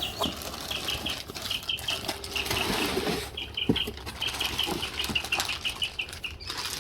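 Small bird chirping in quick runs of short, high notes, over rustling and light knocks as packaging and plastic pieces are handled.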